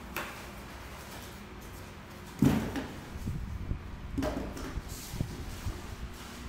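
Cardboard shipping box being opened by hand: flaps pulled apart and the packing handled. There is a loud, sharp scrape about two and a half seconds in, another around four seconds, and small knocks and rustles between.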